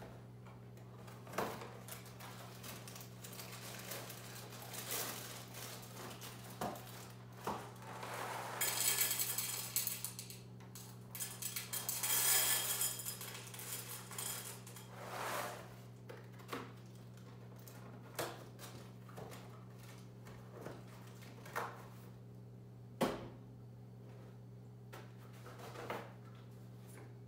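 French Toast Crunch cereal pouring into a bowl in two rattling pours about 9 and 12 seconds in, with scattered clicks and knocks of the box, spoon and bowl being handled and one sharp knock near the end. A steady low hum runs underneath.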